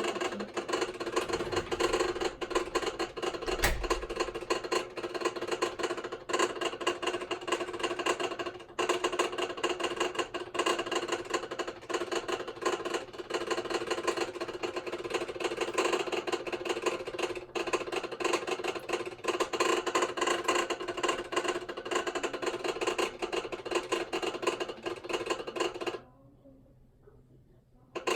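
Hitachi BeatWash washing machine running with an abnormal, continuous clatter of rapid knocks, the kind of noise it made before it broke down. The noise cuts out for about two seconds near the end, then resumes.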